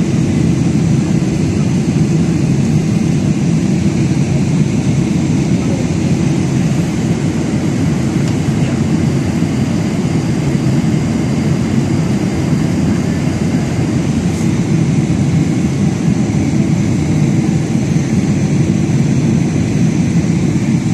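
Jet airliner cabin noise in flight: an even, low rush of engine and airflow noise that holds steady throughout.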